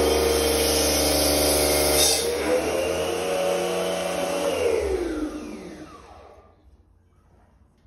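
Electric pump motor of a handpan hydroforming rig running with a steady whine, then switched off about four and a half seconds in and spinning down, its pitch falling until it fades out about two seconds later.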